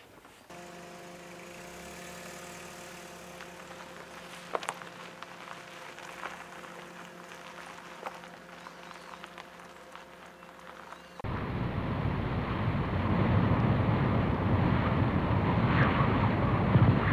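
Car engine running steadily, with a few light clicks. About eleven seconds in, a much louder, steady rushing noise takes over.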